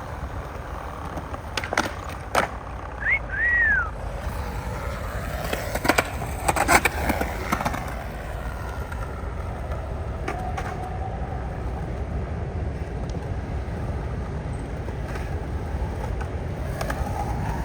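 Skateboard tricks on concrete: wheels rolling and several sharp clacks of the board popping and landing, the loudest about six to seven seconds in, with a brief high squeak about three seconds in, over a steady low rumble.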